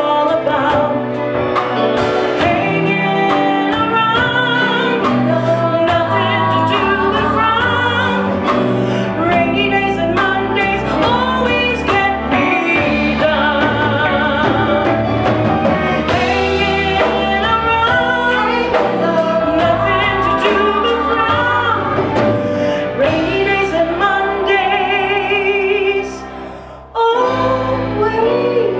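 Live band of drum kit, electric bass, keyboard and guitar playing a soft-rock ballad, with a female lead vocal line. The music drops out briefly near the end, then comes back in.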